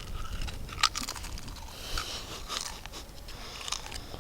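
Crunching and cracking close to the microphone as pistachios are shelled and chewed, with a sharp crack a little under a second in and scattered smaller cracks after it.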